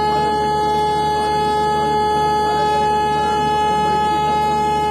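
Indian Railways locomotive horn sounding one long, steady blast on a single pitch, over a low steady hum.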